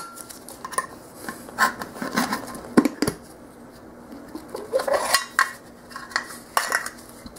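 Metal lid of a tin of paste finishing wax being pried open with a flat metal painter's tool: scattered short metal clicks and scrapes, with the sharpest click a little under three seconds in.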